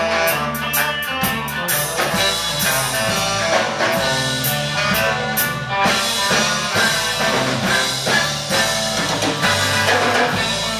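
Live band playing: fiddle, electric guitars and drum kit, with steady drum hits.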